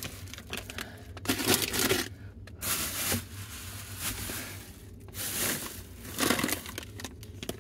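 Plastic snack bags crinkling and crunching as they are handled and packed into a box, in several short bursts.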